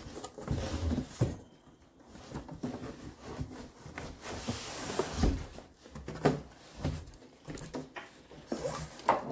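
Irregular knocks, scrapes and rustling as a large cardboard box and the car seat packed inside it are handled and lifted out.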